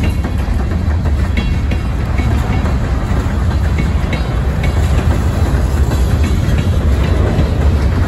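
Freight train of covered hopper cars rolling past: a steady low rumble of steel wheels on the rails, with short high clicks now and then.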